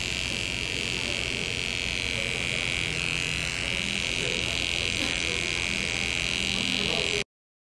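Electric eyebrow trimmer buzzing steadily close to the face while the brows are trimmed, cutting off suddenly near the end.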